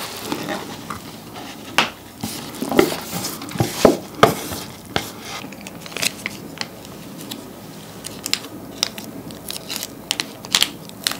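Instant stir-fry noodles tipped and scraped out of a cup onto a ceramic plate with chopsticks, with irregular clicks and scrapes. A plastic sauce sachet then crinkles as runny Sriracha sauce is squeezed out over the noodles.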